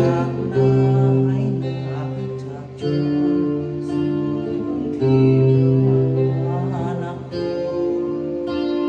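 Instrumental music between sung verses: long held melody notes over a steady low note, changing about every two seconds.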